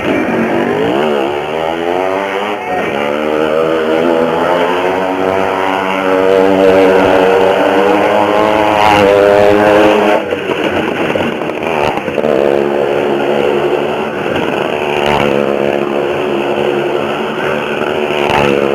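A motor vehicle engine revving: its pitch rises over the first few seconds and holds high, drops suddenly about ten seconds in, then runs steadily again.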